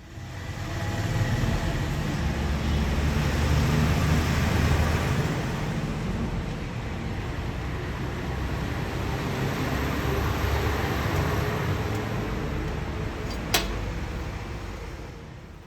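Stick welding arc on thin metal, a continuous crackling hiss as the electrode burns, with a single sharp click near the end.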